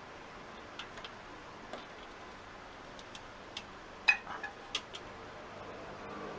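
A few light clicks and taps of metal parts being handled as the motorcycle's stator (generator coil) assembly is lifted out, the sharpest about four seconds in followed by a small cluster.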